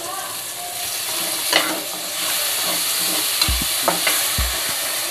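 Onions, tomatoes and green chillies sizzling as they fry in ghee in an aluminium pressure-cooker pan, the sizzle growing louder about two seconds in. A few sharp clicks and two dull low thumps come in the second half.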